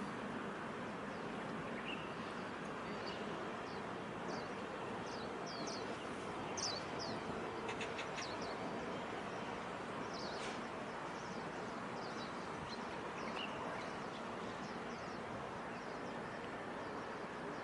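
Small birds chirping in short, high, downward-sweeping notes, scattered irregularly over a steady background noise of outdoor ambience.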